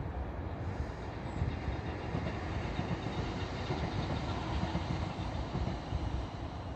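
A passenger multiple unit passing at a distance along the railway, a steady noise of the train running on the track.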